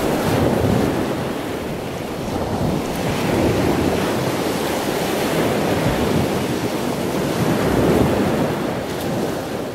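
Ocean waves washing steadily, swelling and easing slowly.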